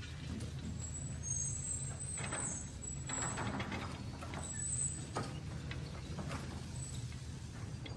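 Small electric motors of a radio-controlled toy excavator whirring steadily, with a high whine that comes and goes. Sand scrapes and spills several times as its bucket digs and tips a load into a toy dump truck's bed.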